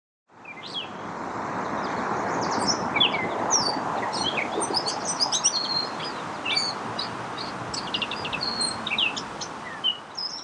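Gray catbird singing: a rambling, quickly changing string of short squeaky and whistled notes over steady background noise.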